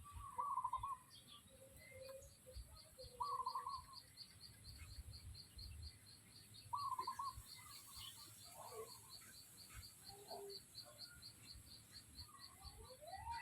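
Birds calling: three short, rapid trilled calls are the loudest sounds, over a steady high chirp repeating about four times a second, with a few gliding calls and a rising call near the end.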